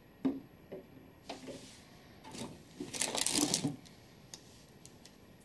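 Handling noise from empty toiletry bottles being put down and rummaged through: a few light knocks, then a short burst of rustling and rattling about three seconds in.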